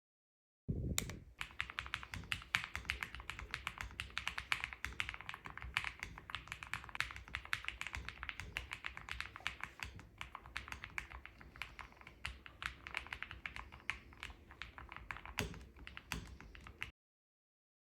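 Rapid typing on an IQUNIX Magi65 Pro aluminium low-profile mechanical keyboard, many keystrokes a second in a continuous clatter. It starts just under a second in and cuts off abruptly a second before the end.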